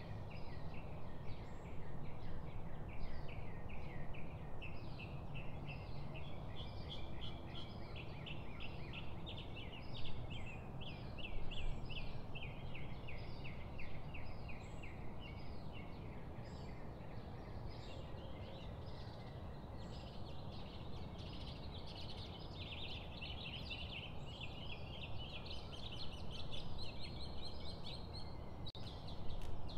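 Birds chirping continuously in quick runs of short, high, downward-sliding notes, over steady low background noise.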